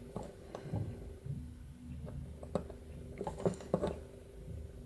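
Faint scattered light clicks and handling noise as a steel-pin contour gauge is held and pressed against a small aluminium window-handle part, over a faint steady hum.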